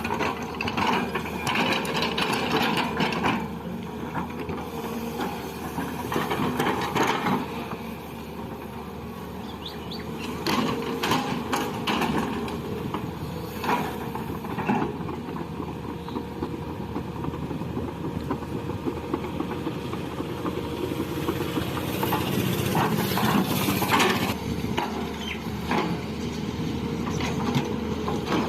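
Excavator's diesel engine running steadily at work, with scattered clanks and knocks.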